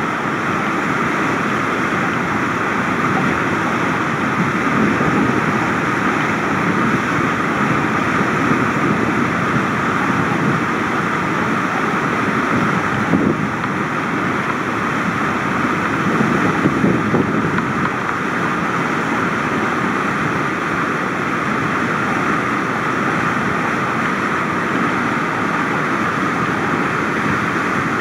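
Big river whitewater rapid rushing, a loud, steady wash of crashing water.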